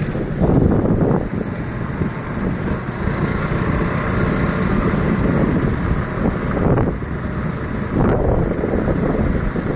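Wind buffeting the microphone, a loud rumbling rush that surges and dips a few times.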